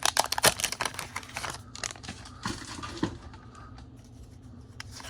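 A Pokémon card booster pack's foil wrapper crinkling and being torn open, with dense crackling through the first two seconds and then fainter handling with a few soft clicks.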